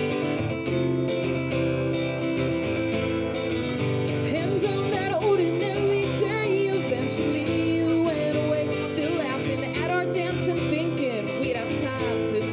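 A woman singing to her own strummed acoustic guitar: the guitar plays alone at first and her voice comes in about four seconds in.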